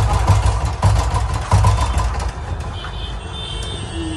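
Royal Enfield Bullet 500's single-cylinder engine being started and firing in irregular low thumps. It dies down about two seconds in: the engine will not start properly.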